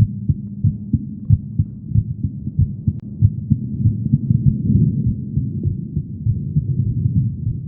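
A woman's heartbeat, heard as a run of low thumps picked up close to the chest.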